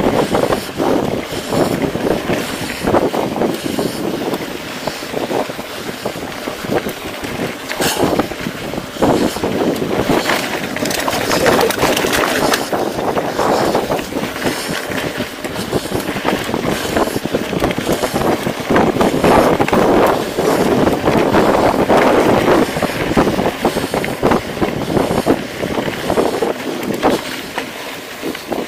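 Mountain bike riding over rocky dirt singletrack: steady wind rush on the microphone, with the tyres crunching over gravel and the bike clattering and rattling over stones.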